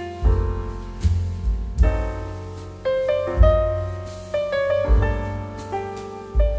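Background music led by piano, with a steady beat of deep bass notes.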